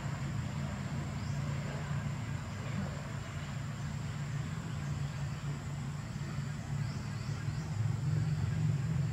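Steady low rumble that grows somewhat louder near the end, with a few faint high chirps about seven seconds in.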